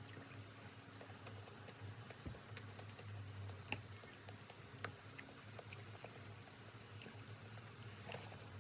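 Faint, scattered light clicks and taps over a low steady hum, one click a little under halfway through louder than the rest.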